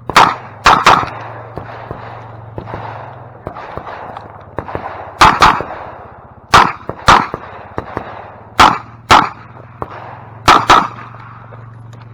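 Revolver firing rapidly in close pairs during a timed USPSA stage: a few shots in the first second, a pause of about four seconds, then four more pairs spaced about two seconds apart.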